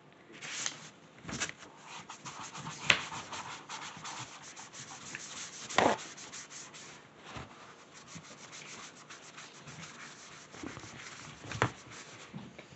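Brisk, scratchy rubbing strokes at a painting table, a brush or hand scrubbing against the palette, paper or tabletop. Sharp knocks come about three, six and eleven and a half seconds in. The rubbing thins out after about seven seconds.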